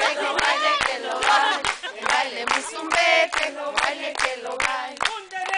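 A group of women singing and shouting a chant together, many voices at once, over a quick run of sharp beats about three to four a second.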